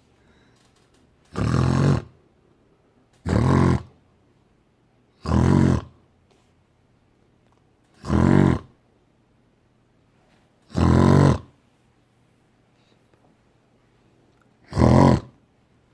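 A man imitating snoring six times, a loud snore roughly every two to four seconds, into the microphone of an anti-snoring air pillow to set off its snore sensor.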